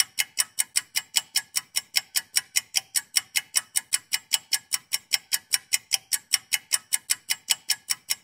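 Ticking clock timer sound effect, fast and even at about five ticks a second, counting down the ten seconds given to answer the question.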